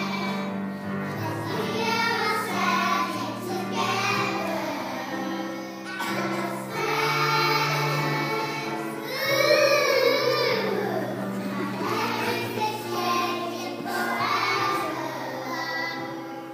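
A group of young children singing together over a steady accompaniment holding low notes. One voice stands out louder for a moment about nine seconds in.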